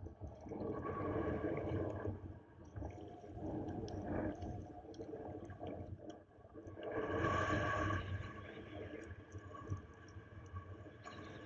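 Water splashing and sloshing from sea kayak paddle strokes, coming in uneven swells, loudest about seven seconds in.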